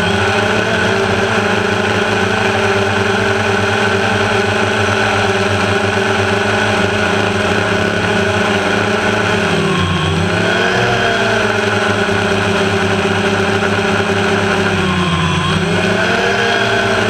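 Multirotor drone's electric motors and propellers running with a steady whine, heard close from its onboard camera. The pitch dips briefly and climbs back twice, about ten and fifteen seconds in.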